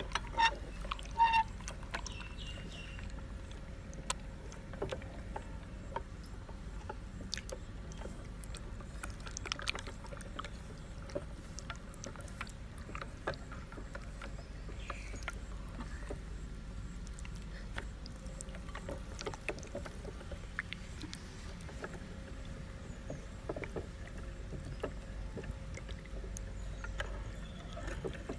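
Meat grinder grinding green jelly: a steady low hum with scattered short clicks throughout.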